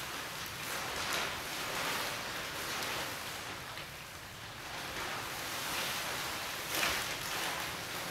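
Plastic sheeting and clear plastic wrap rustling and crinkling as a dancer moves in a costume made of them, in uneven swells, the strongest near the end.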